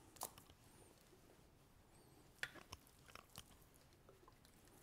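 Faint, soft wet handling sounds of hands oiling and turning raw ribeye steaks on a cutting board, with a few small clicks and taps; otherwise near silence.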